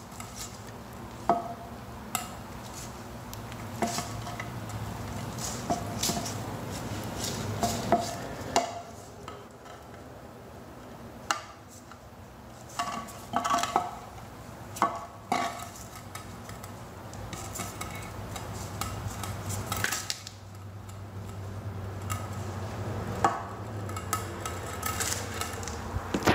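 Handling sounds of a rubber gasket being pressed by gloved hands into the groove of a plastic pool-pump seal plate: scattered light clicks and knocks, with a faint steady low hum underneath.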